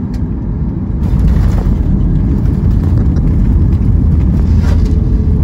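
Cabin noise of a Boeing 737 MAX 8 airliner heard from a window seat over the wing: a loud, steady low rumble of its CFM LEAP-1B jet engines and airflow. About a second in, it grows louder, with a rushing noise.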